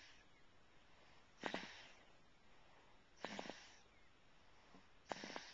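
A sleeping baby snoring faintly: three short, rattly snores about two seconds apart.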